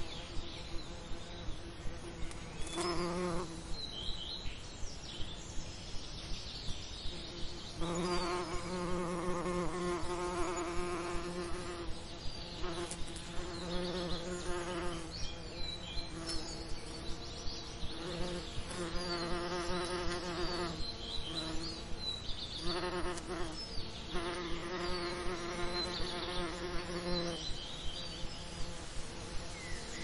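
Bees buzzing, one close buzz swelling and fading in repeated passes of one to a few seconds. Short high chirps and a regular ticking, roughly three every two seconds, run underneath.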